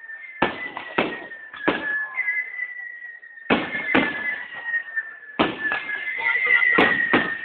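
Fireworks display: aerial shells bursting in sharp bangs, about nine in three clusters, the last cluster the loudest. A steady high tone runs underneath.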